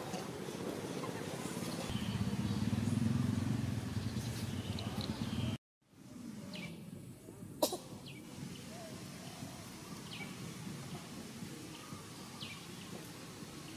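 Outdoor ambience with a low motor rumble for the first five seconds or so, then a sudden dropout. After that come quieter background noise, a single sharp click and a few short high chirps.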